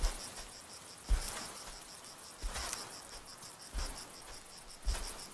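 Insects chirping in a rapid, even pulse, like crickets, with dull low thuds about every second and a quarter.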